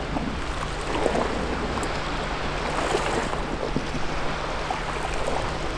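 Sea washing against shore rocks: a steady rush of surf, with a low steady hum beneath it and a few faint clicks.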